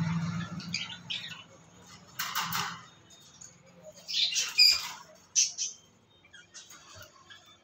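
Small caged parrots squawking: two loud harsh calls about two and four seconds in, then a couple of short sharp calls, with faint chirps in between.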